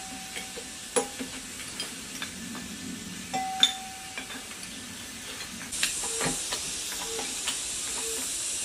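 Metal clinks and clicks of a hand wrench working rusted bolts on a scrapped 1115 single-cylinder diesel engine, with two brief squeaks of a turning bolt. About six seconds in a steady hiss comes up under light regular taps.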